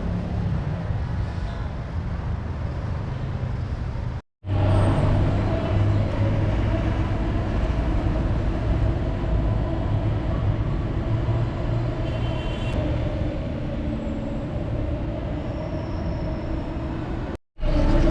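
City street traffic: vehicle engines running with a steady low rumble of road noise. The sound drops out completely for an instant twice, about four seconds in and near the end.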